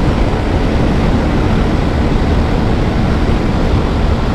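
Steady wind rush over the microphone at about 114 km/h, with a Bajaj Pulsar 125's single-cylinder engine held at full throttle in fifth gear near its top speed.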